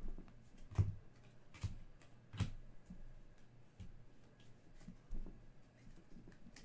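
Trading cards being handled and sorted: a few soft taps and flicks as cards are slid off the stack and set down, the loudest in the first few seconds.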